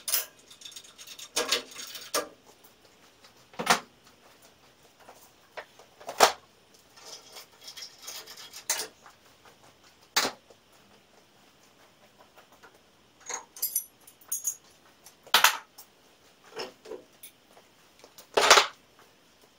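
Scattered metal clanks and knocks as guards and fittings are handled and lifted off a Robland X-31 combination woodworking machine. They come at irregular intervals, the loudest about three quarters of the way through and near the end.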